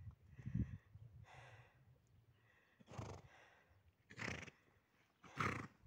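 Four short, breathy puffs of air, about a second and a half apart, the last the loudest.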